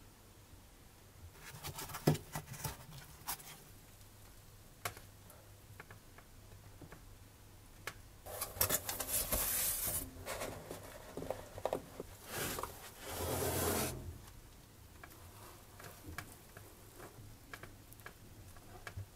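Gloved hands handling a model kit's foam packaging: a few light clicks and taps, then two spells of rustling and rubbing about halfway through as a foam cover sheet is lifted off the parts tray.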